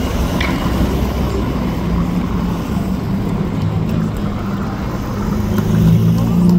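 City street traffic with a road vehicle's engine running close by. Its low hum grows louder near the end.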